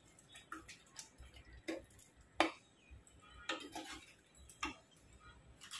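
Steel ladle stirring thick masala in a pressure cooker pot, with scattered light clinks and scrapes of metal on metal and a few sharper knocks against the pot about two seconds in.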